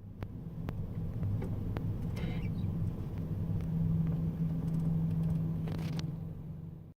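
Amtrak Superliner passenger car riding along the tracks, heard from inside: a steady low rumble with a hum and scattered clicks and knocks.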